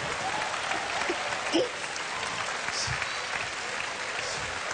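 Studio audience applauding, with a few voices mixed into the clapping.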